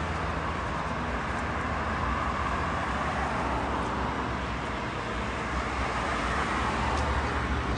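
Steady road traffic noise from cars driving past, a continuous even rush with a low rumble underneath.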